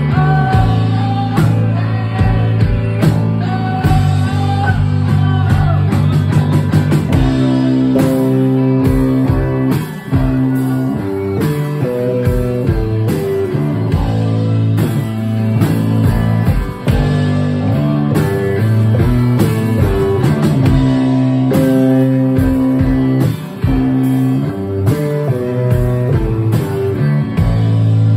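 Live rock band playing: drums, electric bass and electric guitar, with a low note held under a picked guitar line.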